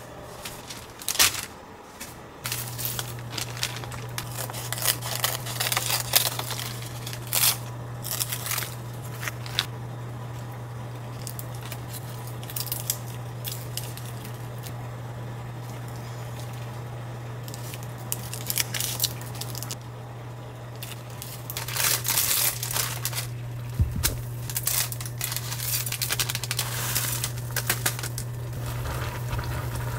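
Kitchen handling sounds: rustling and crinkling of dried laver sheets and a plastic instant-noodle packet being torn open, with scattered clicks. A steady low hum starts about two seconds in.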